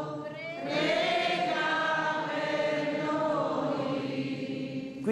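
Group of voices singing an Italian hymn to Saint Michael in long held notes, with a short breath between phrases just after the start.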